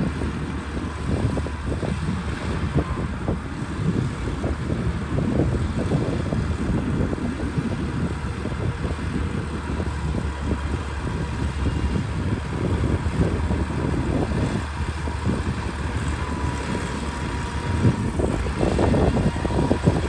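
Liugong B160C crawler bulldozer's diesel engine running steadily under load as it pushes a heap of soil, with a constant low rumble and an irregular clatter of small knocks. One louder knock comes near the end.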